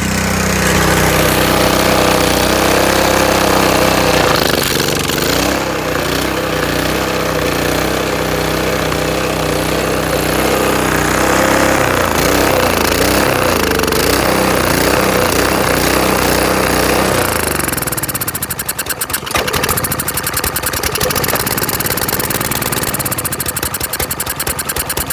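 Honda GC190 single-cylinder engine running while dirt is fed into its intake. The note is steady at first, then wavers and hunts from about four seconds in. About two-thirds of the way through it drops to a slower, rougher run of distinct firing pulses.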